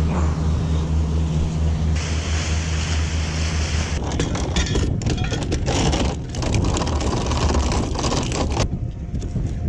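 Boat motor running steadily while under way, a low hum with wind and water rushing over it; the sound changes abruptly about two and four seconds in and again near the end.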